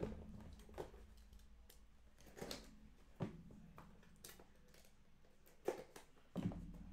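Faint, scattered clicks and rustles from a cardboard trading-card box being handled and opened, about seven in all, over a low, steady hum.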